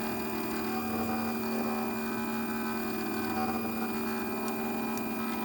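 Stepper motors of a CNC 3018 Pro pen plotter moving the pen at a steady speed, giving an even whine that holds one pitch while a line is drawn.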